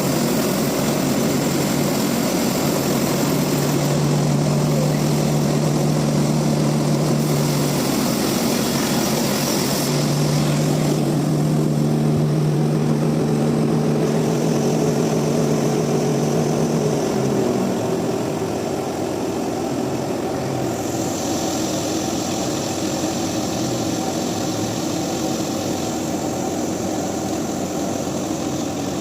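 Sawmill machinery running steadily with a low hum. The hum stops about 17 seconds in, and the machinery keeps running a little quieter.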